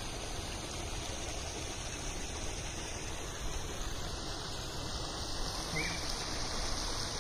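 Steady outdoor background hiss with no clear single source, and one short chirp about six seconds in.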